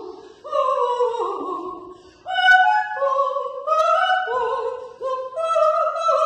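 A soprano sings an operatic passage without accompaniment, in short phrases of held and gliding high notes separated by brief breaths.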